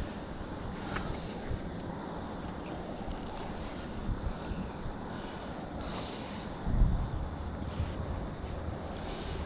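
Steady high-pitched insect chorus from the summer trees, with rustling from a magnet-fishing rope being pulled up hand over hand and a low bump about seven seconds in.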